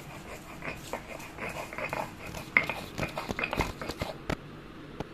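Ginger being ground to paste on a shil-nora, a stone roller rocked and pressed across a flat grinding stone: irregular scraping and knocking of stone on stone, busiest in the middle with one sharper knock about halfway through.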